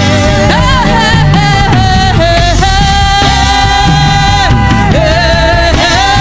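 Gospel praise-and-worship music: a singer holding long, wavering notes over a band with a heavy bass.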